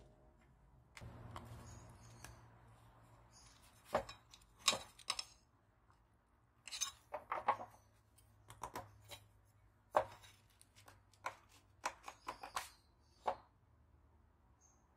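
Irregular sharp clicks and knocks of tools and parts being handled, with a short stretch of scraping about a second in.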